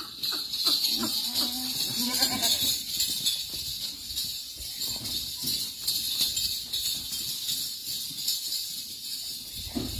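Goats bleating, with one clear, wavering bleat about two seconds in, over a steady high hiss and scattered rustling.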